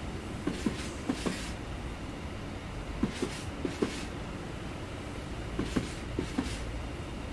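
Freight train rolling past, a steady rumble with its wheels knocking over a rail joint in quick pairs, one pair after another as each set of wheels crosses.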